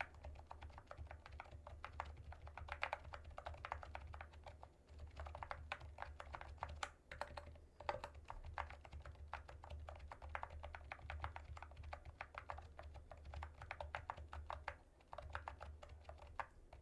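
Fast, continuous typing on a low-noise portable membrane keyboard, with soft rapid key clicks and a few brief pauses.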